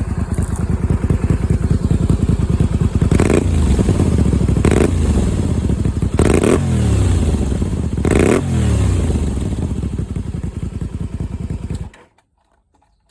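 Honda VT250F (MC15) V-twin idling through its exhaust silencer and blipped four times, each rev rising and falling straight back to idle. The sound cuts off abruptly near the end.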